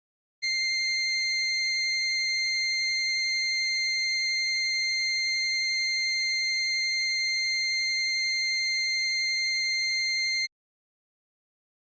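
Recreated Hitachi elevator electronic signal tone: a single steady high-pitched tone, held for about ten seconds, then cutting off suddenly.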